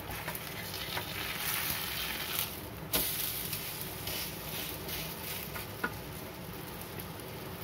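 A batter pancake frying with a steady sizzle on a flat griddle pan while it is flipped and pressed with a metal spatula. A few sharp clacks of the spatula on the pan, the loudest about three seconds in.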